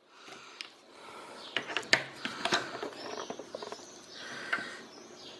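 Light clicks, taps and scrapes of small metal parts being handled as a door lock mechanism is taken apart, with a few faint high squeaks in the middle.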